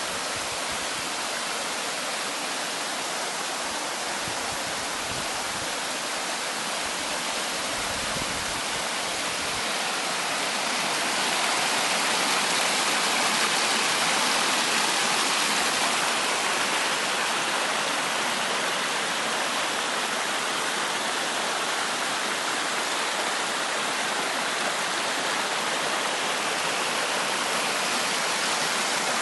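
Steady rush of running water, as of a mountain stream, growing a little louder about ten seconds in.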